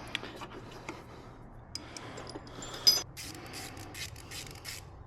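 Hand tools and parts being handled on the bench: scattered small clicks and rubbing scrapes, with a sharper click about three seconds in followed by a run of light ticks.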